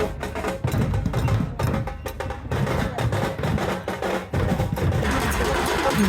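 Percussion-led music: drums struck in a quick, repeating beat. About five seconds in it changes to a denser, noisier sound.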